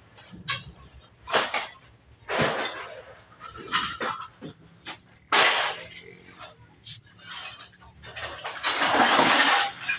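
Scrap metal being loaded into a truck's cargo box: a string of separate clanks and crashes, the longest and loudest near the end.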